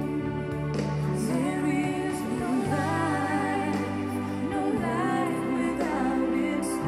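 A song played on a Bang & Olufsen Beosound Explore portable Bluetooth speaker. A singing voice comes in about a second in, over sustained held chords and a steady bass.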